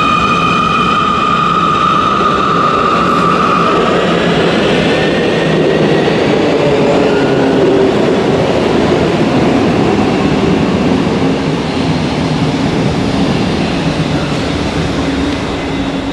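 Munich U-Bahn Siemens C2 metro train pulling along an underground station platform, its drive giving a steady whine with several overtones that stops about four seconds in. After that comes the rumble of a metro train running through the station, with a slowly falling tone midway.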